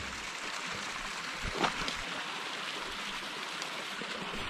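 Mountain stream running, a steady rush of water, with a single light knock about one and a half seconds in.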